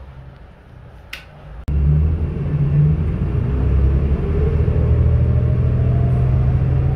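City bus running, heard from inside the passenger cabin: quieter at first with a brief high squeak about a second in, then a sudden jump to a loud, steady low engine rumble with a whine that rises in pitch as the bus moves along.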